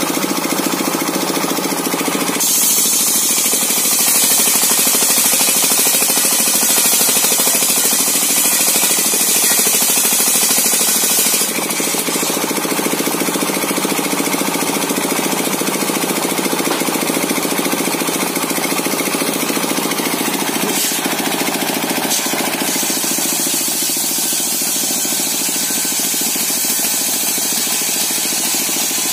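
Serkel circular saw running and cutting coconut wood. Its steady mechanical drone carries a louder high hiss twice: from about two seconds in to the middle, and again near the end.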